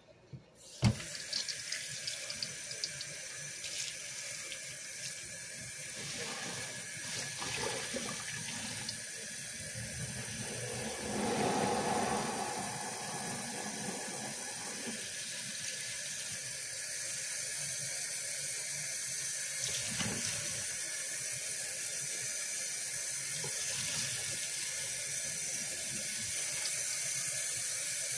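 Kitchen faucet running into a plastic basin of soapy water in a stainless steel sink, starting with a sharp knock about a second in. Around eleven seconds in, a louder gush as the basin is tipped and its sudsy water pours into the sink.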